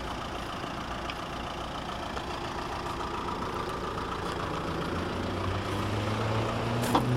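A vehicle engine running steadily, growing louder and rising slightly in pitch over the last two seconds, with one sharp click near the end.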